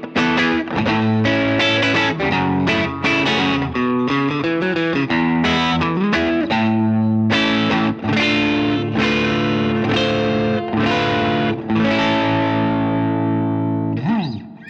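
Maybach Lester 59 electric guitar played through an amp on an overdriven crunch tone, pickup selector in the middle position so both humbuckers are on: a riff of picked notes and repeated chords, ending on a bent note that is cut off near the end.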